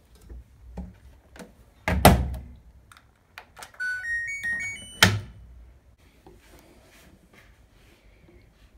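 LG Direct Drive washer-dryer being loaded and started: knocks and a loud thunk as the porthole door is shut about two seconds in, then the machine's short power-on jingle of stepped beeps rising in pitch, ending on another knock.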